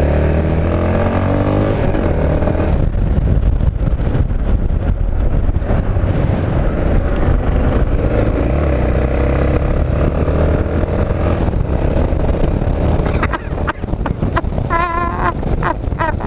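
Motorcycle engine pulling under throttle while riding, its note rising over the first few seconds and then holding steady, with a brief dip near the end, under wind rushing over the helmet-mounted microphone.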